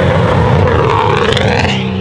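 BMW M2 F87's turbocharged straight-six through a decatted Fi exhaust, revving with a dense exhaust crackle. The pitch climbs steeply from about halfway in and cuts off near the end.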